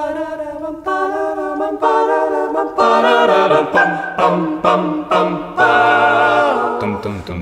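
Mixed six-voice a cappella vocal ensemble, men and women, singing the opening chords of a song without words. The chords change about once a second, and a low bass voice comes in about three seconds in.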